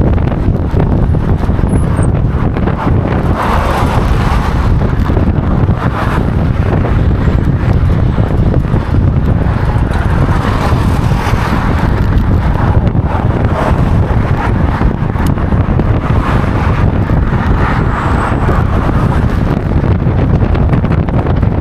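Very strong wind buffeting the microphone: a loud, steady low rumble, with gusts swelling into a higher rush three times.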